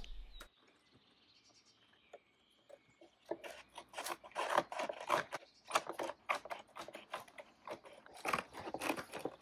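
Scissors cutting a sheet of oak veneer: a quick, irregular run of crisp snips that starts about three seconds in and carries on to the end.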